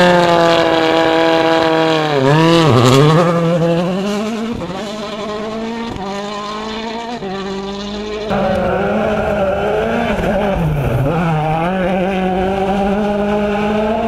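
Citroën DS3 WRC rally car's 1.6-litre turbocharged four-cylinder engine running hard at high revs on a gravel stage. The pitch drops and climbs back twice, about 2 seconds in and again about 10 seconds in, and the sound jumps abruptly louder about 8 seconds in.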